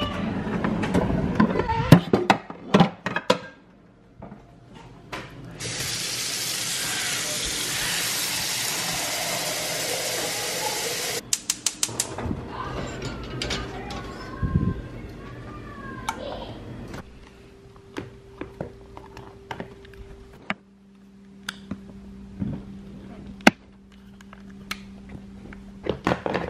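Kitchen work: a drawer and dishes clatter, then water runs hard from a tap for about five seconds and stops suddenly. A rapid run of clicks from the gas stove's igniter follows. In the last third a low steady hum sets in, with a voice heard now and then.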